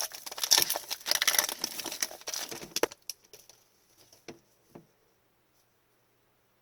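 Plastic foil wrapper of a trading card pack being torn and crinkled for about three seconds, followed by a few soft taps.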